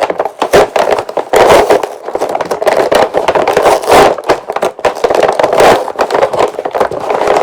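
Cardboard packaging being torn and pried open where it is held with strong glue: loud, continuous crackling, tearing and scraping, heard through badly distorted audio.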